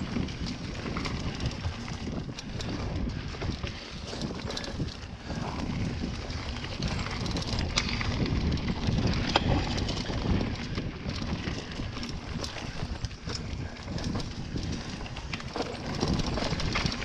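Hardtail mountain bike rolling fast down a rocky dirt singletrack, its tyres rumbling over the ground, with frequent short rattles and clicks from the bike. Wind buffets the microphone throughout.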